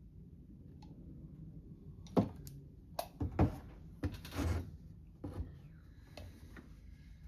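Small carburetor parts and tools being handled on a workbench: a string of sharp clicks and knocks with a short scrape among them, from about two seconds in to past five seconds.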